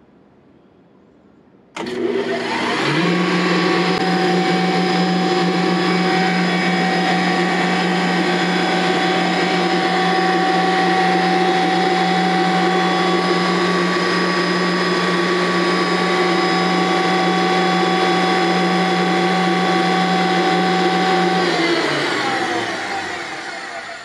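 FIAC New Silver rotary screw air compressor starting up about two seconds in: the electric motor and screw airend spin up within a second, then run loud and steady with a low hum and a steady whine. Near the end the pitch falls and the sound fades as the machine winds down.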